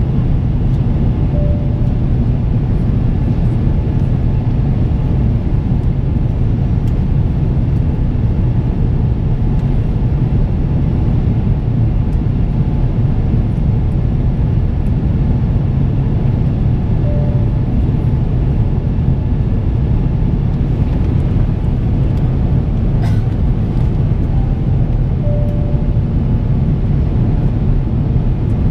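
Steady cabin noise of an Airbus A350-900 in flight, heard inside the cabin at a window seat: an even, low rumble of airflow and Rolls-Royce Trent XWB engine drone.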